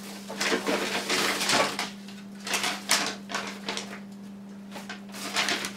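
Irregular rustling and shuffling handling noises over a steady low electrical hum.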